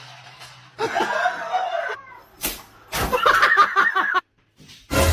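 People laughing and talking, with a single sharp slap-like knock about two and a half seconds in.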